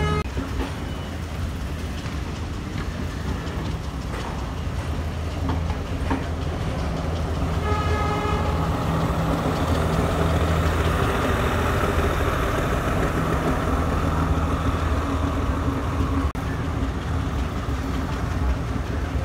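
Sri Lanka Railways Class S10 diesel multiple unit running past, its diesel engine droning steadily along with the wheels on the rails. A short horn note sounds about eight seconds in.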